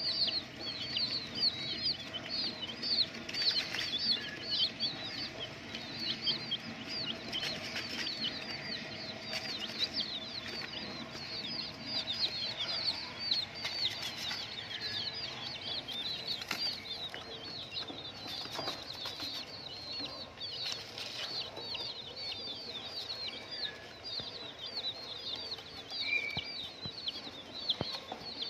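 Many baby chicks peeping continuously: short, high, falling peeps overlapping one another, several a second.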